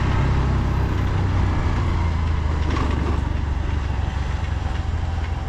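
Steady low rumble of a road vehicle on the move: engine and road noise, easing off slightly near the end.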